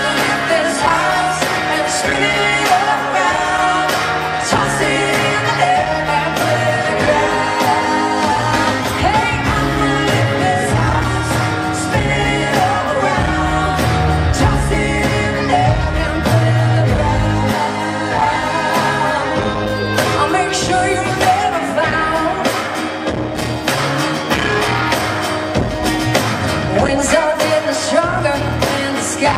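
Live country band performance with lead and harmony vocals over drums, bass and guitars, played loud through a concert sound system.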